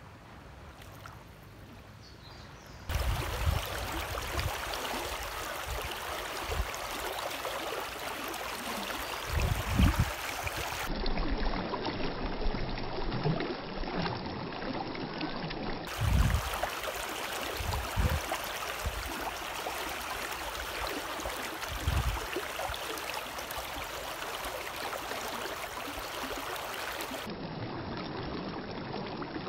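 Shallow river water running and trickling over rocks, a steady rushing that sets in about three seconds in, with a few brief low thumps.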